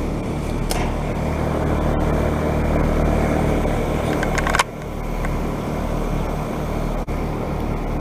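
Carrier Comfort series heat pump outdoor units running in heat mode: steady hum of compressors and condenser fans. A sharp click about four and a half seconds in is followed by a slightly quieter hum.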